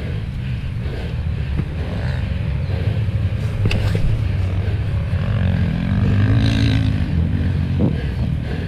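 Motocross bike engine running under the rider on board, its pitch climbing and then dropping back once just past the middle as the throttle is opened and closed.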